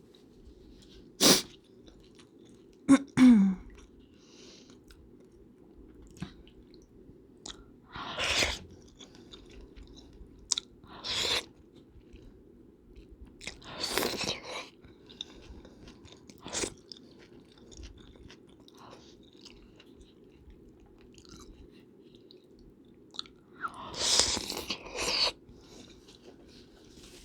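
Close-miked eating: chewing, with scattered sharp clicks and short bursts of mouth noise, over a steady low hum.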